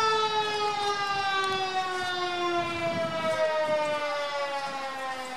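Fire truck siren winding down: one long, steady wail whose pitch falls slowly throughout while it fades.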